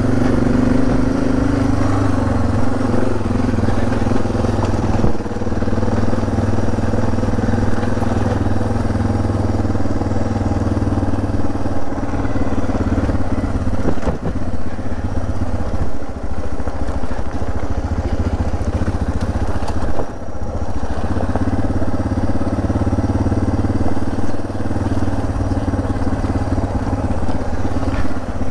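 Suzuki DR650's single-cylinder engine running at a nearly steady, low pace as the bike picks its way over a rough, rocky dirt track, with scattered knocks and clatter from rocks under the tyres and the bike.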